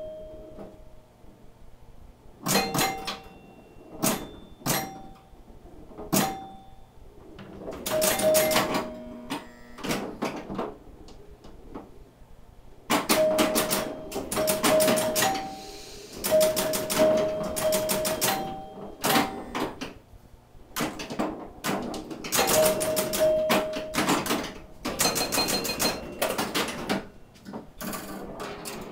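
1974 Williams Skylab electromechanical pinball machine in play: irregular bursts of mechanical clacking from its solenoids, relays and score reels, with the bell chimes ringing short notes as points score.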